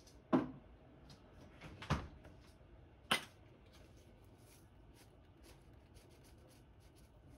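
Three sharp clicks or knocks about a second apart, then a light, irregular ticking from about four seconds in as a shaker of dried parsley flakes is shaken over a dish.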